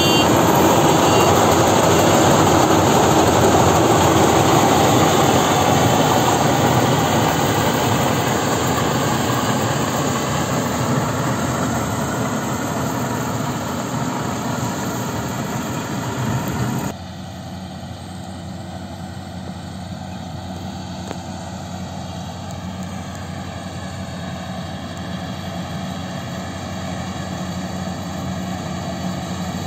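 GAM combine harvester's engine and threshing machinery running while it cuts rice, a loud, dense drone that slowly fades as the machine moves off. About halfway through it drops suddenly to a quieter, steadier engine hum.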